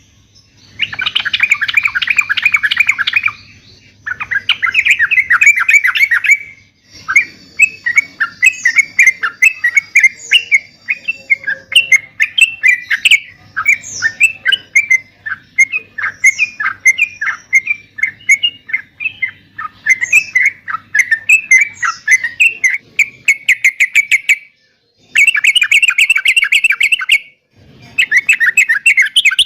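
Yellow-vented bulbul (trucuk) singing nonstop: dense, rapid chattering phrases of about two seconds, broken by short pauses, with a long stretch of quick separate notes through the middle.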